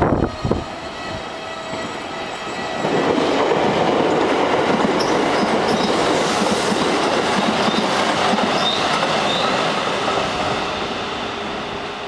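JR Central electric train passing on the Tokaido Main Line: the rumble of wheels on rails swells about three seconds in, holds, then fades over the last couple of seconds.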